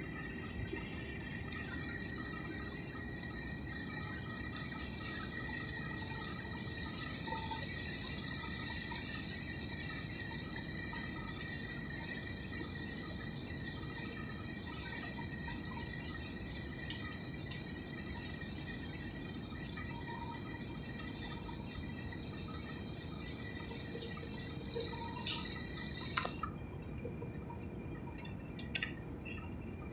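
Airliner cabin noise on a night approach: a steady rumble of engines and rushing air, with a high steady whine that cuts off about 26 seconds in. A few light clicks come near the end.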